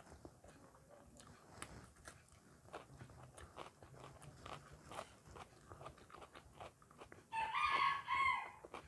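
Close-up eating sounds: soft chewing and wet mouth clicks of someone eating rice and curry. Near the end comes a much louder high-pitched call in two parts, lasting about a second and a half.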